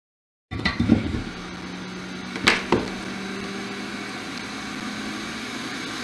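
Hot air rework station's blower running with a steady hum, cutting in about half a second in, with a few sharp clicks of metal tweezers on the board in the first three seconds.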